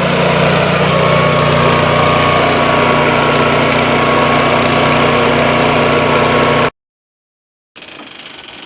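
A heavy machine's engine idling steadily, which cuts off abruptly about seven seconds in. After a second of silence a much quieter steady hum follows.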